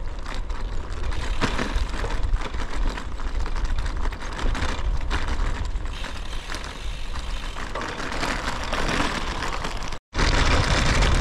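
Wind buffeting the microphone over the tyres of a loaded bicycle rolling on a stony gravel road, with scattered crunches from the stones. The sound cuts out for an instant about ten seconds in and comes back louder.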